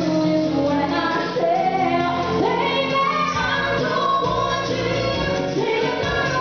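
Live band playing a pop song, with a singer carrying the melody over the instruments.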